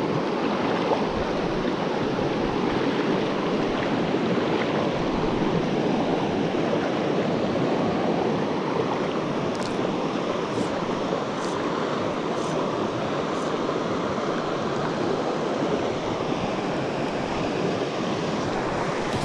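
Steady rushing of river water over a small waterfall, an even, unbroken hiss.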